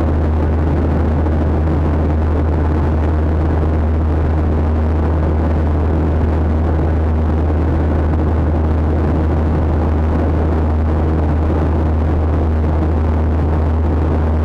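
Steady engine and airflow noise inside a jet airliner's cabin in flight, an unchanging drone with a strong low hum beneath it.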